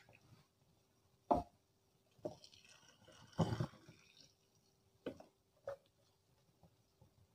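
Ground rice mixed with milk poured from a blender jar into a pot of hot milk: a faint splashing pour with a few short knocks of the jar, the loudest about halfway through. A faint steady hum lies underneath.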